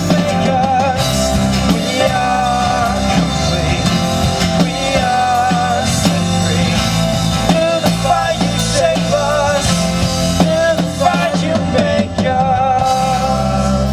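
Rock band music with a drum kit, a steady bass and a wavering melodic lead line.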